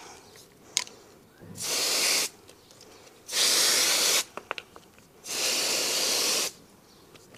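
Hand-pumped IK pressure sprayer misting diluted wheel cleaner in three hissing bursts, each about a second long.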